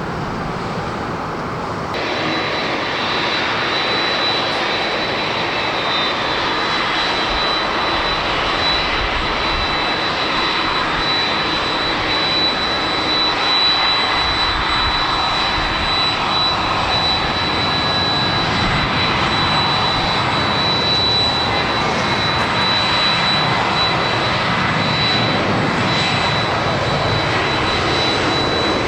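An airliner's jet engines running at takeoff power: a loud, steady rushing noise. A high steady whine joins about two seconds in, when the sound gets louder.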